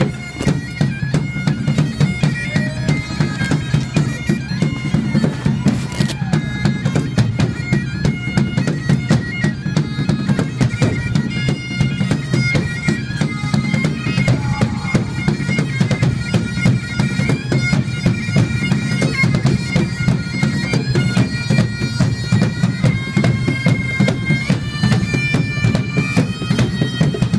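Bagpipe music: a steady drone under a melody that steps from note to note.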